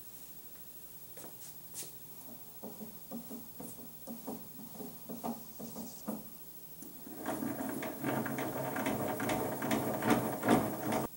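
Restored benchtop horizontal milling machine's table being moved by hand with its feed handwheel: irregular light clicks of the feed screw and slides, then about seven seconds in a faster, denser mechanical rattle as the handwheel is cranked, which stops suddenly near the end.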